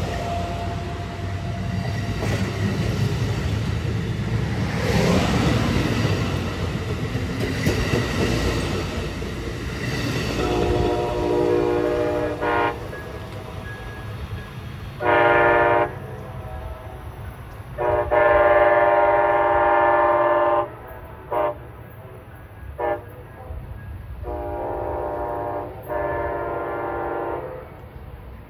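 A train passes close with a heavy rumble and rail noise. From about ten seconds in, a locomotive air horn sounds a series of long and short blasts, several notes at once, loudest in the middle of the series.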